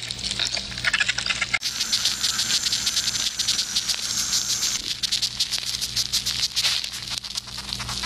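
Ants heard through a high-sensitivity microphone, amplified: a dense, fast crackle of tiny clicks and scratches over a steady low hum. The crackle changes abruptly about one and a half seconds in.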